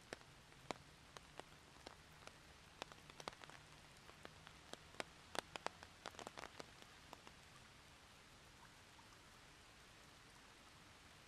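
Faint steady rain hiss with scattered single drops landing as sharp taps, most thickly about five to seven seconds in. After that only the soft hiss remains.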